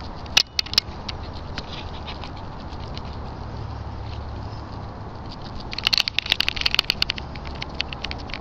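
Crackling, scraping clicks that come thick and fast from about six seconds in, as the person filming moves across the shelter's gritty concrete floor, over a low steady rumble. A few sharp clicks come in the first second.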